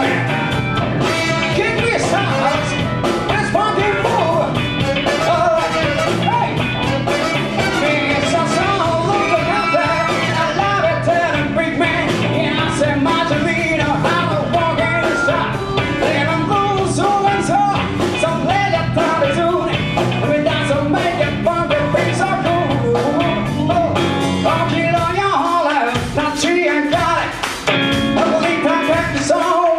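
Live band playing a song with a singer; the bass drops away for a few seconds near the end.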